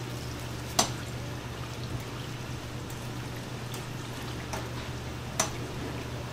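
Fish cakes deep-frying in a vat of hot oil: a steady sizzle over a low hum, broken by two sharp clicks, about a second in and again near the end.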